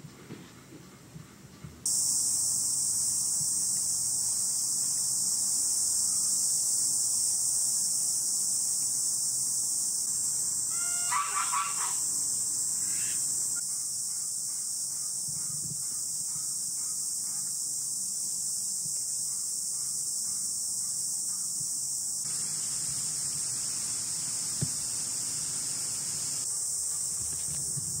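Steady high-pitched drone of insects, cicadas or crickets, starting suddenly about two seconds in and running on. A brief pitched bird call comes about eleven seconds in.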